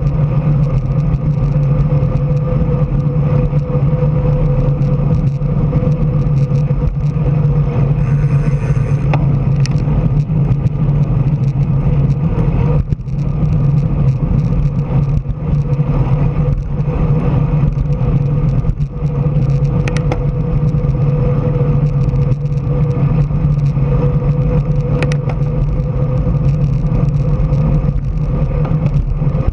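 Steady road and wind noise from a moving vehicle, with a constant low hum and scattered small knocks and rattles.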